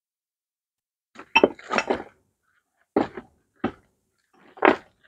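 Metal engine parts and a zip-lock plastic bag being handled on a workbench: a handful of short clinks and crinkles in four or five separate bursts, beginning about a second in.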